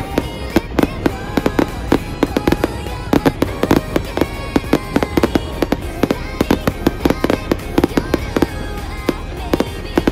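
Fireworks going off in rapid, irregular bangs and crackles, several a second, over background music.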